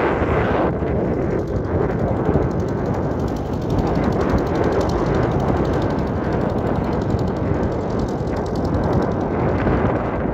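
Small tractor engine running, loud and steady throughout.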